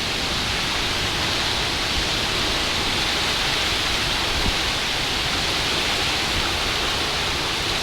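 Heavy rain pouring down steadily during a thunderstorm, a dense, even hiss.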